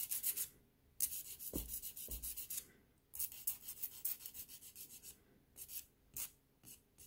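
A Staleks Pro nail file on a metal base rasping across the free edge of a thumbnail in quick back-and-forth strokes. The strokes come in runs with short pauses between them, with a couple of low bumps about one and a half and two seconds in and a few single strokes near the end.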